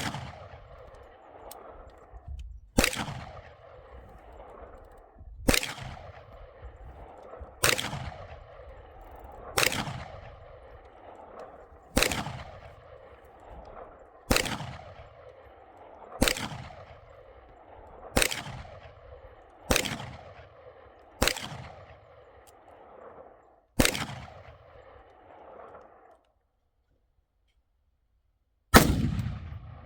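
AR-15-style rifle fired in slow, deliberate single shots about two seconds apart while its optic is being zeroed, each shot trailing off in an echo. After a pause near the end, one last shot.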